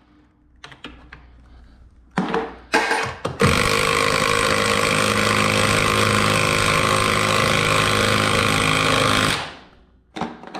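Cordless impact driver driving a fastener through a garage door flag bracket into the wooden door jamb: two short bursts, then one steady run of about six seconds that stops abruptly.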